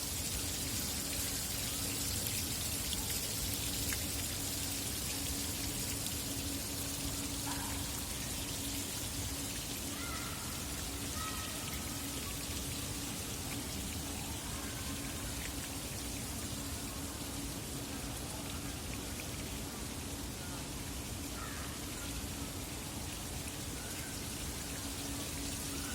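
Fountain water falling and splashing into a pool in a steady rush, with a faint low steady hum underneath.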